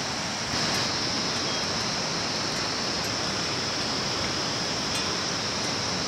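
Steady rushing noise, like running water, with a steady high-pitched hiss over it that grows a little louder about half a second in.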